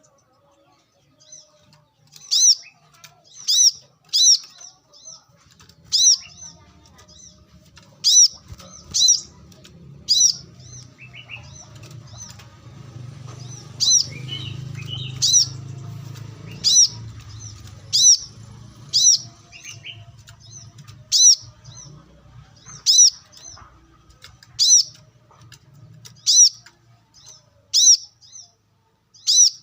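Brown-throated sunbird calling: sharp, high notes, each a quick downward stroke, repeated about once every second or so with a short pause partway through. A low rumble swells under the calls in the middle.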